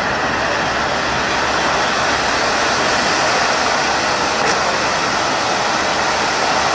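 A 5-metre, 60-second gold-to-silver ground fountain firework burning: a steady, continuous hissing rush from its spark spray.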